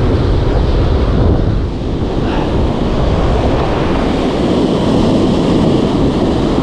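Rough surf breaking and washing over reef rocks, a steady roar of white water, with wind buffeting the microphone.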